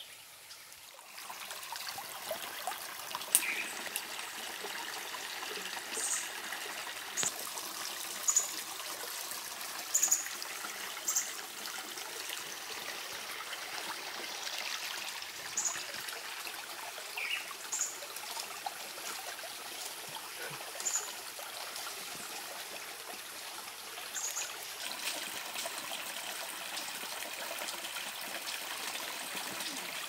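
Shallow rocky forest stream trickling, a steady water sound. Short high chirps come every second or two over it, with a few sharp clicks.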